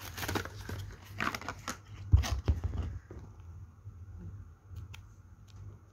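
Rustling and crinkling handling noise with sharp clicks, a bump about two seconds in, then only a few faint clicks over a low steady hum.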